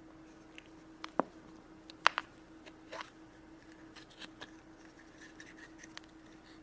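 Hands unwrapping and opening a chocolate egg's plastic toy capsule: scattered sharp plastic clicks and light scraping, the loudest clicks about a second and two seconds in, over a faint steady hum.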